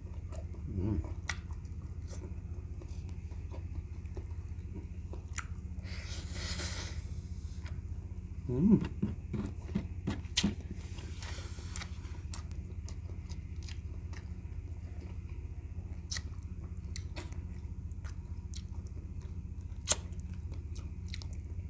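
Close-miked chewing of soft, sticky boiled goat feet and tendon, with wet mouth clicks and smacks scattered throughout over a steady low hum. There are two longer hissy sucking sounds about six and eleven seconds in, and a short louder throat sound about nine seconds in.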